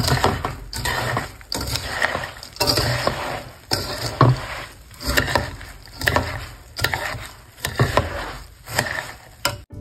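A spatula stirs puffed rice through sticky jaggery syrup in a stainless steel wok, scraping the pan and rustling the grains in steady strokes about twice a second. This is the puffed rice being coated in the jaggery for puffed rice balls.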